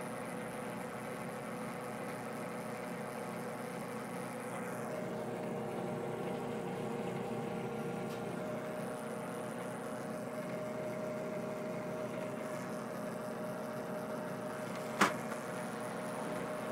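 Metal lathe running steadily, its motor and gearing giving a constant hum with a faint steady tone, during a thread-cutting session. A single sharp metallic click comes about fifteen seconds in.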